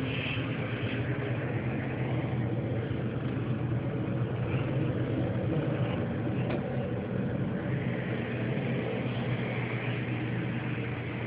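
A steady low mechanical hum that runs unbroken, with no clear change.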